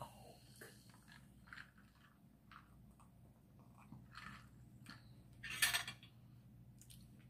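Quiet eating-and-drinking sounds: sips and swallows of iced Coke from a glass, with scattered small clicks. One brief louder noise comes about five and a half seconds in.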